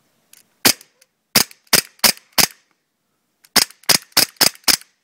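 KJ Works SIG Sauer P226 CO2 blowback airsoft pistol firing two strings of five sharp shots, about three a second, with a pause of about a second between the strings.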